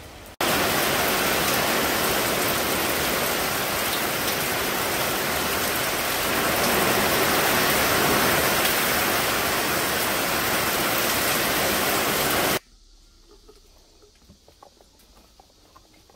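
Heavy downpour falling on the roof overhead, a loud, even rush of rain that is so noisy it feels as if the ceiling might give way. It cuts off suddenly about twelve seconds in, leaving only faint scattered ticks.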